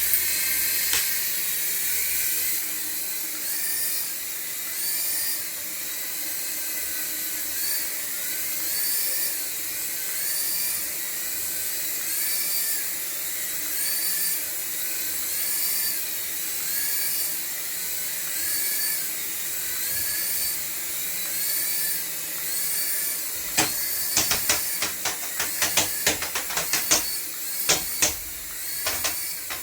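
High-pitched whine of a radio-controlled toy's small electric motor, its pitch rising and falling about once a second. Near the end comes a run of sharp clicks and knocks.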